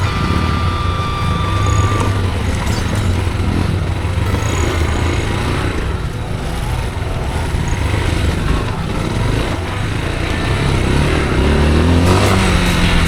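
Motorcycle engine running steadily while riding; the revs climb near the end.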